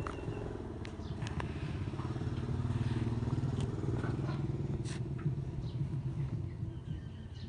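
A low engine rumble that grows louder about two seconds in and eases off again, with a few light clicks over it.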